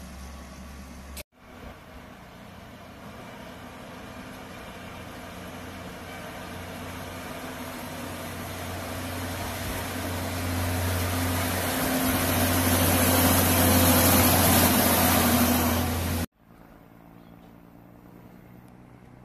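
Sentinel diesel shunter's Rolls-Royce engine running as the locomotive approaches and passes close by, growing steadily louder to a peak, then cut off suddenly about three-quarters of the way through.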